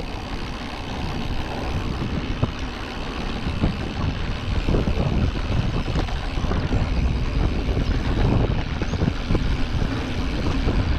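Mountain bike rolling over a rutted dirt track: a steady rumble of tyres and wind on the microphone, with frequent short knocks and rattles as the bike goes over bumps.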